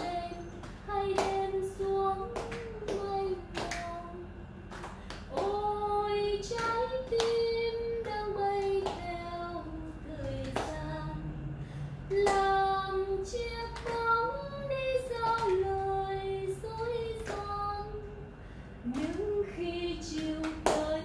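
One voice singing a slow Vietnamese song without accompaniment, holding long notes, while a small group claps along in a steady beat.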